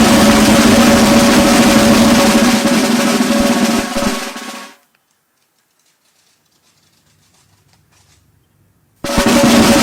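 Drums playing loudly with snare drum rolls over a steady held tone. The sound fades out about four seconds in, stays near silent for about four seconds, then cuts back in abruptly.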